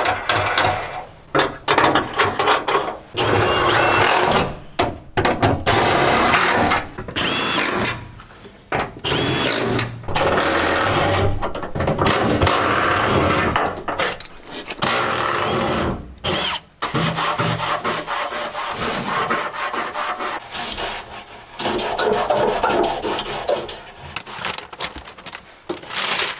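Power drill boring holes through the truck's sheet-metal body panel, running in repeated bursts of one to four seconds with short pauses between them.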